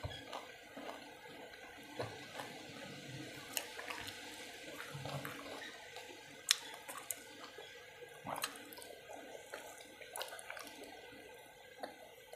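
Wet chewing and mouth sounds of someone eating, with scattered soft clicks and a few sharper smacks spread through.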